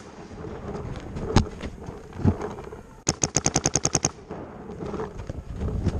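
Paintball markers firing: a single shot about 1.4 seconds in, then a rapid string of about a dozen shots in roughly one second around the three-second mark, over background popping from the rest of the field.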